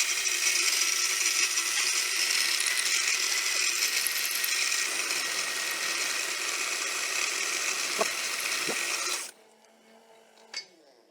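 Milling machine with an 8 mm end mill cutting a groove across a steel bar: a steady, bright cutting noise that stops abruptly about nine seconds in, followed by a faint click.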